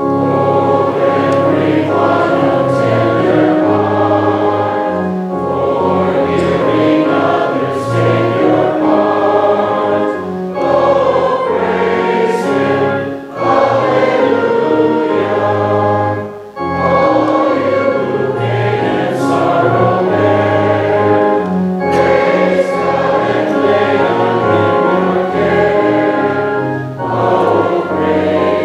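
A group of voices singing a hymn together in long held phrases, with brief pauses between phrases.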